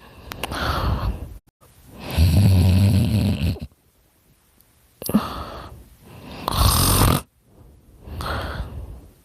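Snoring in sleep: slow, noisy breaths about every two seconds, two of them loud, one with a low buzzing snore.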